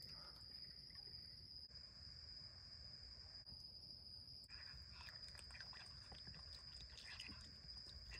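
Steady high-pitched chirring of night insects. From about halfway, faint scattered clicks and rustles are added as a raccoon pulls at and chews grapes.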